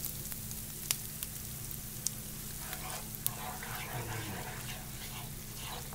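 Heavy cream sizzling as it is poured into a hot nonstick pan of butter and pollock roe, stirred in with a wooden spoon, with a few sharp clicks of the spoon. A low steady hum runs underneath.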